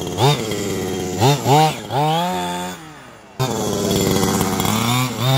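Two-stroke petrol engine of a 1/5-scale Losi 5IVE-T 2.0 RC truck, revving up and down in short throttle blips and then longer pulls, dropping away briefly near the middle before picking up again. The new engine is being run in, held to gentle throttle.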